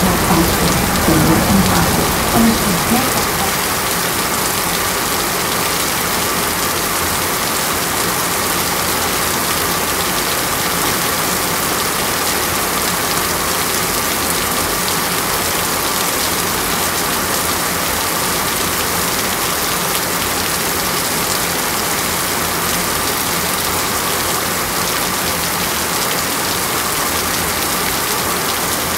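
Steady, even hiss of water jets spraying down like heavy rain and splashing onto a wet, flooded stage set. A few voices are heard in the first couple of seconds.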